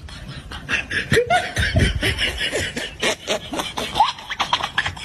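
A person laughing in quick, rhythmic bursts.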